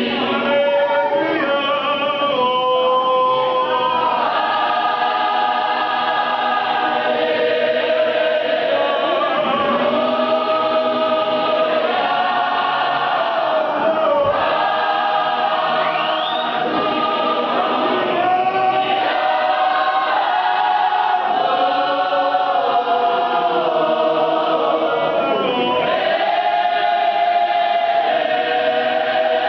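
Mass gospel choir of clap-and-tap groups singing a hymn unaccompanied in many-voiced harmony, with long held chords that shift from one to the next.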